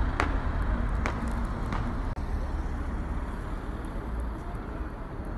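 Outdoor city street ambience: a steady low rumble of road traffic, with a few short sharp clicks in the first two seconds.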